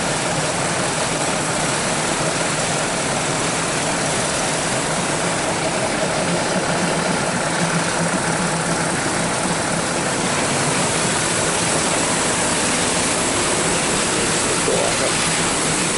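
Diesel train engine idling steadily while the train stands at a halt, heard from inside a passenger coach.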